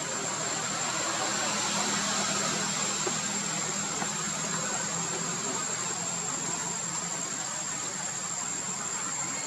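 Steady outdoor background noise: a constant high-pitched whine over a faint low hum, with no distinct sounds standing out.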